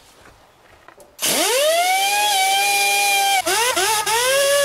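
Handheld pneumatic tool on an air hose, working the oil pan bolts of a GM 4.3L V6. It spins up with a rising whine, runs steady for about two seconds and cuts out. It then spins up again in a few quick steps and runs on to the end.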